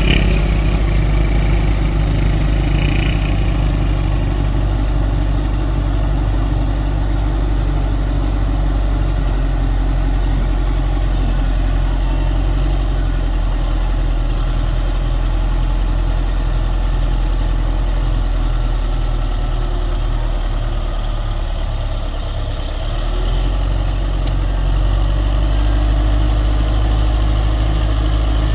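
Heavy construction machine's diesel engine running steadily, with a brief dip in level about three-quarters of the way through.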